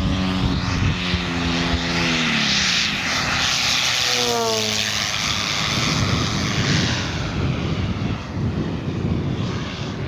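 Hangar 9 P-51D Mustang giant-scale electric model passing, with no sound generator: its 24x8 two-blade propeller, driven by a brushless motor, buzzes with a tone that drops in pitch as it goes by about two seconds in. A second short pitch sweep follows around four seconds in, then a rushing propeller noise that slowly fades.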